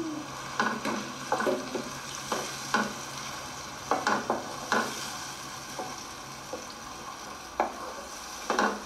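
Ground tomato and onions sizzling in oil in a non-stick kadai, sautéed with a spatula that scrapes and knocks against the pan at irregular moments over a steady sizzle.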